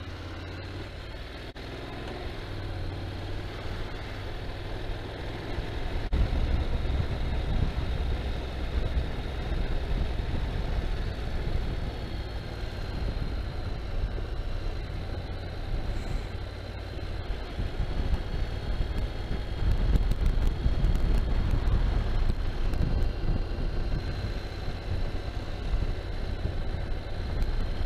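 Dirt bike engine running as the bike rides along, under a low rumble of road and wind noise that grows louder about six seconds in.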